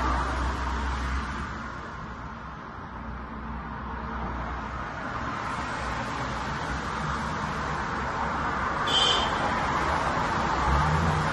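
Steady background noise with a low rumble, like distant road traffic, and a brief high-pitched chirp about nine seconds in.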